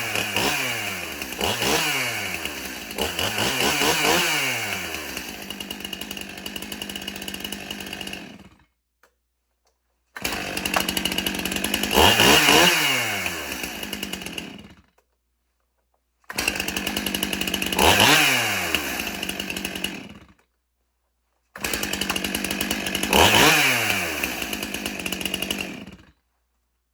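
Stihl gas chainsaw run in short bursts, throttle blipped so the engine revs up and drops back several times. The sound cuts out abruptly to silence three times between runs.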